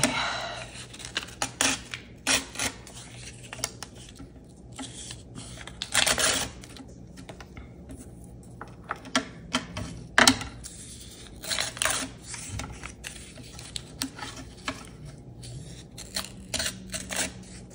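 Paper pieces being handled on a cutting mat: brief rustles and scrapes of card stock with light taps and clicks, coming irregularly, the loudest rustles about six, ten and twelve seconds in.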